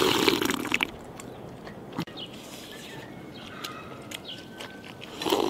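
Loud slurp of thin rice porridge sipped from a bowl in the first second, then quiet chewing, and another loud burst of eating noise near the end.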